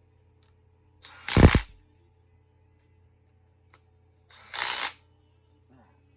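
A power tool run in two short bursts, each under a second, about a second and about four and a half seconds in, plausibly snugging down cylinder-head bolts on a big-block Chevy.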